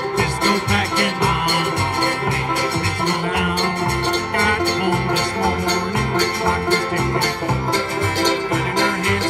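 Bluegrass string band playing live with no vocals: banjo and mandolin picking fast notes over acoustic guitar and an upright bass plucking steady low notes on the beat.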